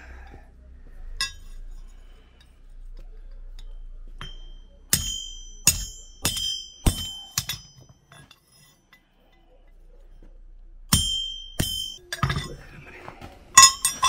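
Hand hammer striking a steel punch held in a horseshoe's nail hole on an anvil: sharp, ringing metal strikes that open the nail holes so the nails will pass. One strike comes about a second in, then a run of five roughly every half second, two more later, and a quicker flurry near the end.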